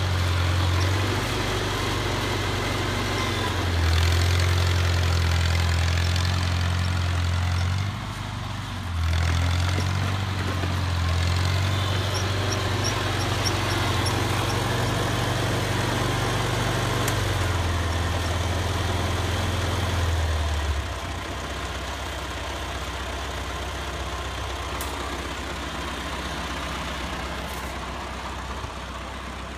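1949 Farmall Cub's small four-cylinder engine running with a strong, uneven low hum, then settling to a quieter, steady idle about two-thirds of the way in.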